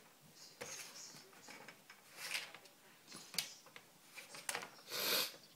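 Close rustles, scrapes and a few sharp clicks, with two short hissing bursts, the second and louder one near the end, as a beagle puppy pushes up against the phone.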